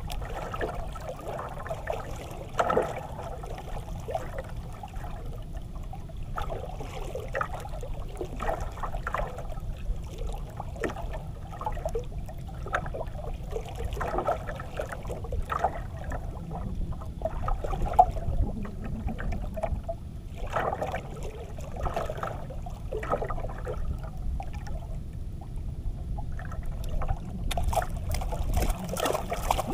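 Sea water lapping and splashing against the hull of a small outrigger banka in irregular small slaps, over a steady low rumble.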